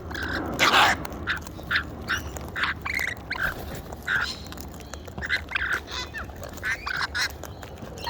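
A mixed flock of birds calling while feeding: many short, separate calls one after another, with one louder, harsh call about a second in.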